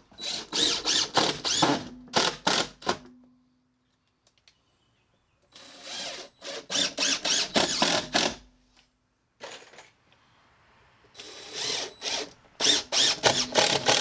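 Cordless DeWalt impact driver driving screws into pressure-treated lumber in three runs of a few seconds each. Each run is a fast, stuttering series of hammering pulses and ends with a short hum as the motor spins down.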